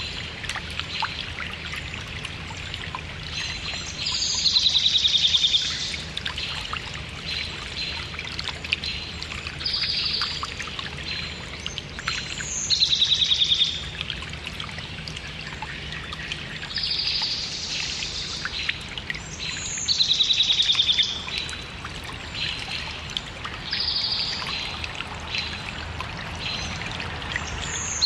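A small stream trickling and bubbling steadily, with a songbird repeating a short song every three to four seconds: a brief high note, then a fast falling trill.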